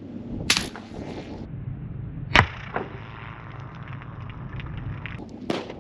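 Suppressed 300 Blackout shot from a CVA Scout break-action pistol fitted with a Dead Air Nomad-LT suppressor: a short sharp crack about two and a half seconds in, quiet for a gunshot, followed a moment later by a fainter knock of the bullet hitting the target. Two other sharp knocks, one near the start and one near the end.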